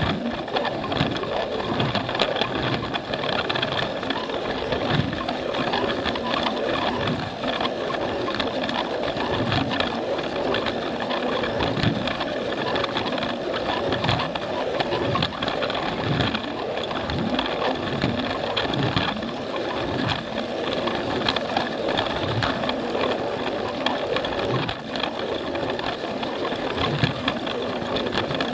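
Battery-powered Plarail toy train's small electric motor and gearbox running steadily, with a low knock from the wheels every second or so as they cross the plastic track joints.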